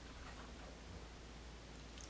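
Near silence: faint steady room hiss.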